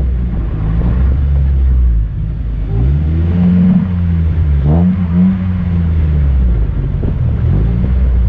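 Rallycross car's engine revving up and easing off about three times as it is driven hard, the pitch climbing and then dropping each time.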